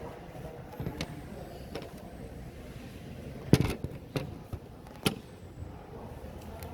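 A few sharp clicks and knocks from handling an opened laptop and its parts while fitting a memory module, the loudest about three and a half seconds in, over a faint background hiss.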